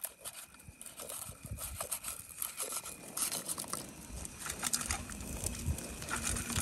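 Light clatter of cooking utensils: a plastic spoon stirring instant noodles in a steel pot and a spatula working a fried egg in a small frying pan on a camping gas stove. It is an irregular scatter of small clicks, taps and scrapes.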